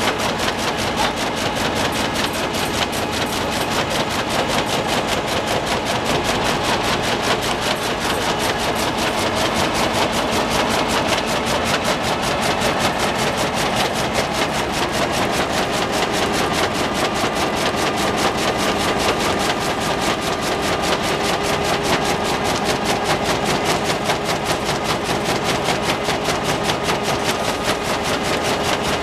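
Dongfang AD920 flexo printing machine for corrugated board running at high speed, 18,400 sheets an hour. Its steady mechanical running comes with a rapid, even clatter as the board sheets feed through the rollers.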